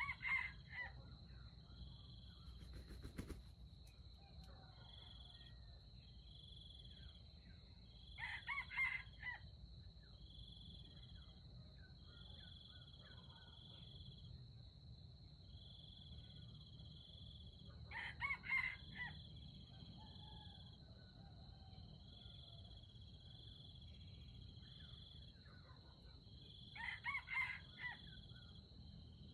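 Red junglefowl rooster crowing four times, about every nine seconds, each crow short and clipped, lasting about a second. Insects buzz and chirp steadily underneath, with a single sharp knock about three seconds in.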